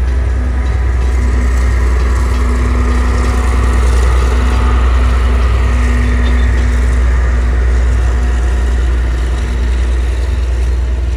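Diesel train engine running with a loud, steady low drone as the train moves along the track, a little louder about four to six seconds in.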